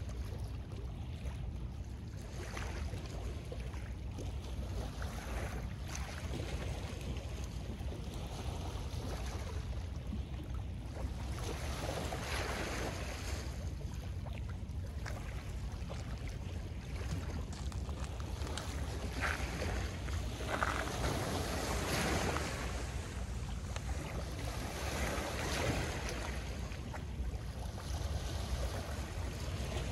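Small lake waves washing and lapping onto a pebble shore, swelling every few seconds, over a steady low rumble of wind on the microphone.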